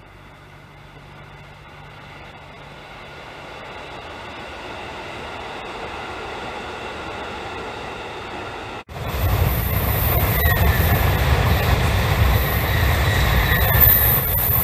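A Tokaido Shinkansen high-speed train passing on the elevated line. Its rushing noise grows slowly, then after a cut about nine seconds in it is loud, with a thin high tone over the rush, and it starts to fade near the end.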